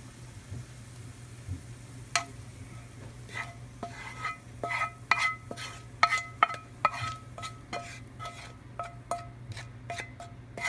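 A spatula scraping and knocking against a frying pan as fried bacon, onion and garlic are pushed out of it. It starts about two seconds in as a quick, uneven run of ringing clicks, several a second, with the pan ringing on each knock.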